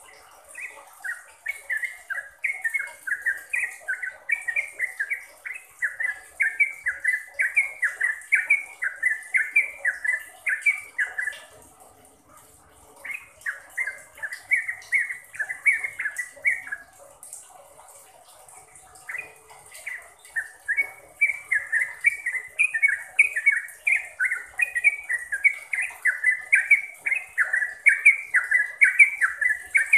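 Yellow-vented bulbul (trucukan) singing long runs of quick, bubbly repeated phrases. It sings in three bouts, with short breaks about eleven and seventeen seconds in.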